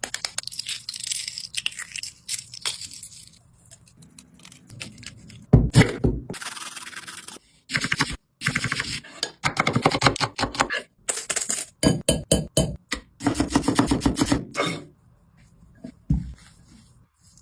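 Food-preparation sounds in quick edited snippets: utensils scraping and clicking against a bowl, with sharp cracks and knocks. Each snippet starts and stops abruptly.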